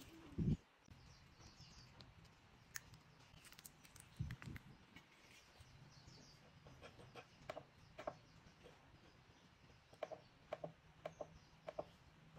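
Quiet handling of a cell phone on a workbench: a couple of soft bumps, then scattered small clicks, with a quick run of clicks near the end as the phone's keypad and a bench power supply's control knob are worked.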